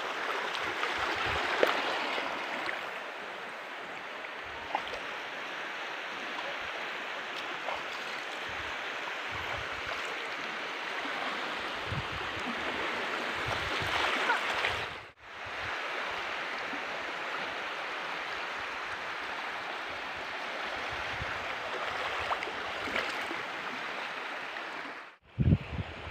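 Shallow seawater washing and lapping in a steady hiss of small waves, with light splashing. The sound cuts out briefly twice, near the middle and near the end.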